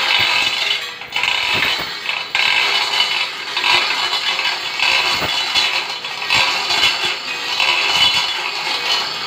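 Manual chain hoist being hauled by hand to lift a hydraulic cylinder barrel: the steel chains rattle and clink continuously through the hoist, with many small irregular clicks.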